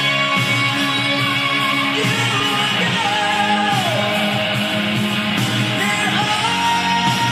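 Rock song with guitar and singing, played through the speakers of a homemade boombox whose cabinet has been lined with extra fiberglass insulation to deepen its sound.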